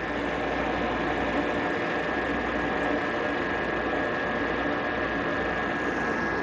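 Water rushing through a partly closed ball valve and venturi injector driven by a booster pump: a steady hissing rush with a steady high whine, the motive flow being throttled down.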